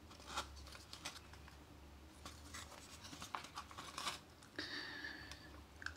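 Faint handling noise from a 12 V ceramic fan heater's opened plastic housing and finned heating element: light clicks and scratches as the parts are turned over and pressed in the hands, with a brief squeaky scrape a little past two-thirds of the way through.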